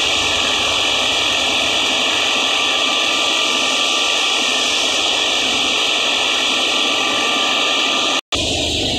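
Tractor-driven wheat thresher running at speed: a loud, steady whooshing machine noise as straw is fed in, with the tractor engine running under load. The sound cuts out for a split second near the end.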